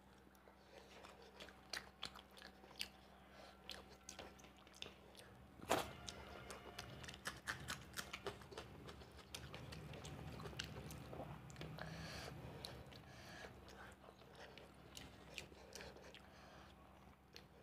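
Close-miked chewing and mouth sounds of a man eating rice and fish curry by hand: wet smacks and clicks, the loudest click about six seconds in and a quick run of them just after, over a faint steady hum.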